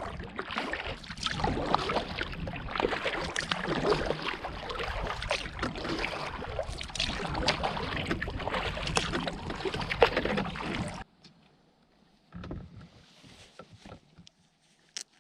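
Kayak paddling: a paddle dipping and splashing in lake water, with water sloshing around the boat. About eleven seconds in, the sound cuts off abruptly, leaving near quiet with a few faint knocks.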